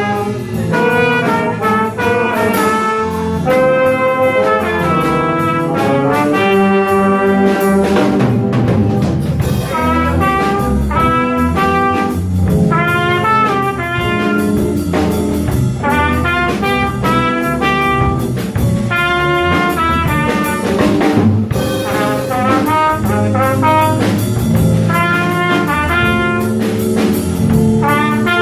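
Small jazz ensemble of trumpet, tenor saxophone, trombone, piano, bass and drum kit playing live, with the brass lines carrying the melody over a steady rhythm section.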